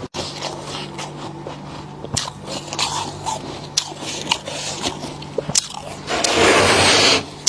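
Freezer frost being bitten and crunched close to the microphone: scattered crisp crunches, then a loud grinding crunch about six seconds in that lasts about a second. A low steady hum runs underneath.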